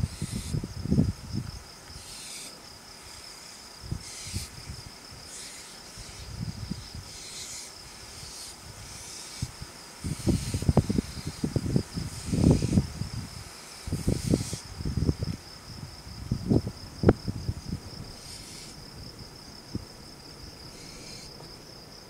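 Crickets chirring in a steady, finely pulsed high trill, broken every second or two by short breathy hisses from barn owls. Knocks and scrapes come from the owls moving on the wooden nest box, thickest from about ten seconds in, with the loudest single knock near seventeen seconds.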